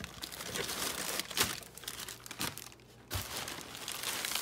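A thin plastic shopping bag holding toilet paper rolls rustles and crinkles in irregular bursts as a hand rummages inside and pulls rolls out. There is a brief lull and a soft thump a little after three seconds.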